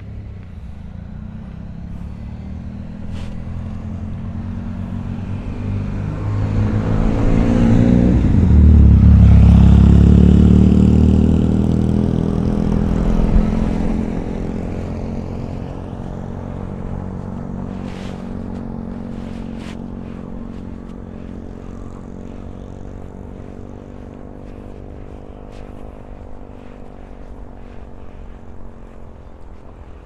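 A motor vehicle's engine drawing near and passing close, loudest about nine to eleven seconds in, then easing off to a steadier running sound.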